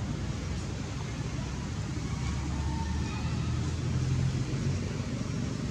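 Low rumble of a vehicle engine, swelling a little about two seconds in and easing off near the end.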